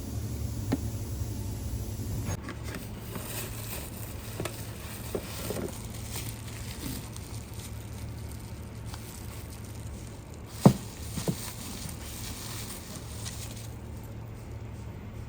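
Scattered light clicks and scrapes of hand tools and parts being handled during work on the engine, with one sharp click about ten seconds in and a lighter one just after, over a steady low hum.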